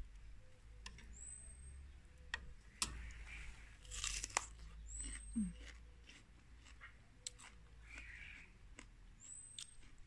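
Crunchy chewing of raw bitter melon, with small sharp clicks and one louder crunch about four seconds in. A short high chirp sounds three times, about four seconds apart, behind it.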